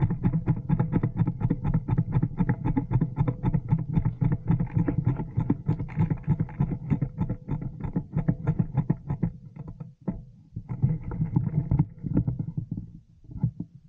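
Airsoft electric rifle firing on full auto in a long string of rapid shots. The firing breaks off about ten seconds in, comes back as a short burst, then trails off into a few scattered shots near the end.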